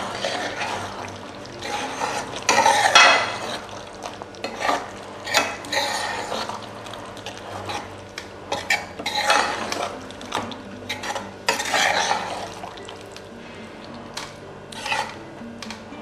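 A spoon stirring chicken keema gravy in a pan, with irregular scrapes and clinks against the pan.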